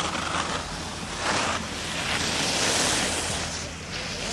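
Wind buffeting the microphone in a rushing noise that swells in gusts, about a second in and again through the middle, over a steady low rumble.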